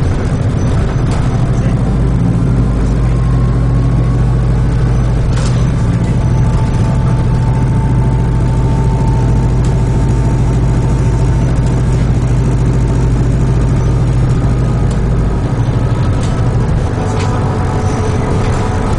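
A New Routemaster hybrid double-decker bus running, heard from inside the bus: a steady low drivetrain hum that changes about three quarters of the way through, with a few sharp knocks and rattles.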